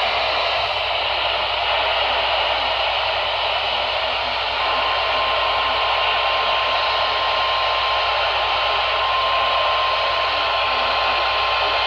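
Radio static: a loud, steady hiss on the weather radio receiver. About five seconds in, a single steady high tone comes through faintly under the hiss and holds: NOAA Weather Radio's warning alarm tone.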